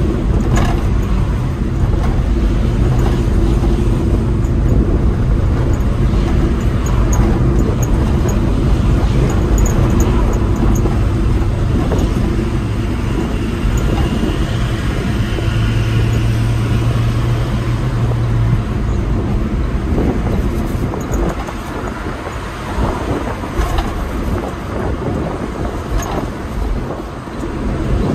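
Engine and road noise inside the cab of a moving Suzuki Carry pickup: a steady low engine drone with tyre rumble, easing off and becoming more uneven in the last third, with a few light knocks.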